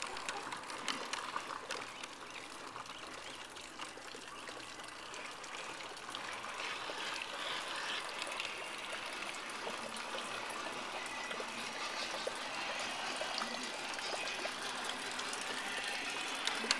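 Water trickling and splashing steadily, growing slowly louder through the second half.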